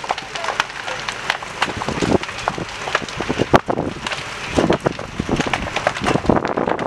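Large building fire crackling and popping: many sharp, irregular cracks, the loudest about halfway through, over a steady rushing noise.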